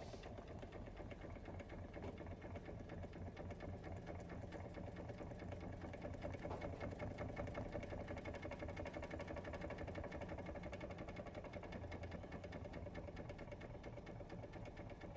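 Doll 387/3 model steam engine running steadily on steam, a rapid even mechanical beat from its small piston and flywheel, a little louder around the middle.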